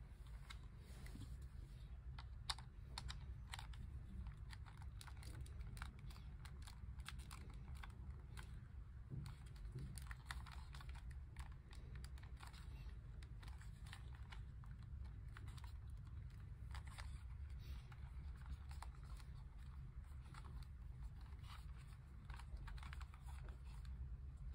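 Faint, irregular light clicks and clacks of Millennium Puzzle model-kit pieces being slotted together and the puzzle being turned in the hands while its final pieces are fitted, over a low steady hum.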